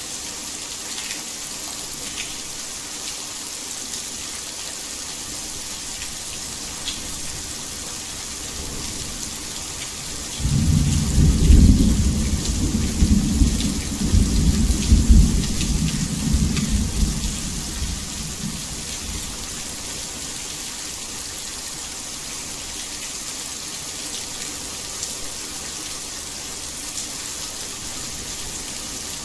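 Steady heavy rain hissing, with a roll of thunder that breaks in suddenly about ten seconds in, rumbles low for several seconds and fades away.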